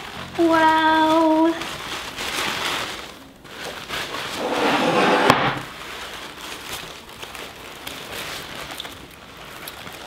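Crinkling and rustling of packing paper as it is pulled away from a potted plant, after a short held vocal "ooh" of delight about half a second in.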